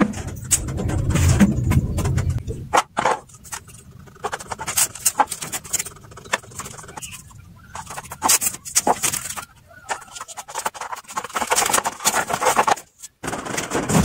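A low steady hum cuts off about three seconds in. Then comes a run of crackles, rips and clicks: masking tape is pulled off its roll, torn and pressed down by hand.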